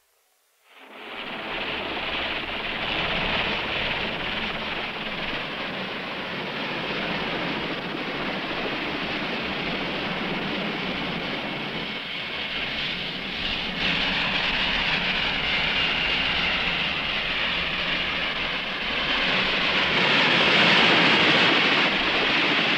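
Helicopter in flight: a steady rotor chop with engine noise, fading in about a second in and growing louder near the end.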